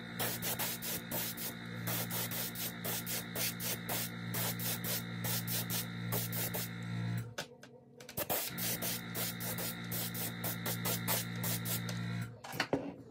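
Iwata airbrush spraying paint: a hiss over a steady low hum with rapid even pulsing. It breaks off for about a second some seven seconds in, then stops about a second before the end.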